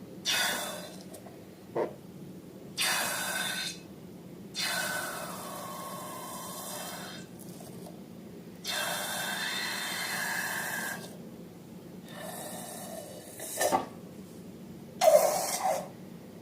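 Balloons being emptied, air rushing out of their necks in a series of about six hissing, sputtering bursts, the longest lasting two to three seconds.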